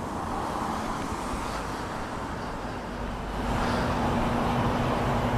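Road traffic on a wet street: steady tyre hiss with engine hum, growing louder about three seconds in as a vehicle comes closer.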